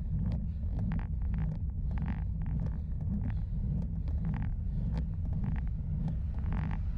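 Wind buffeting the microphone of a bike-mounted camera and road rumble from a bicycle riding uphill, a dense steady low rumble. Short, irregular clicks and rattles come on top, a few each second.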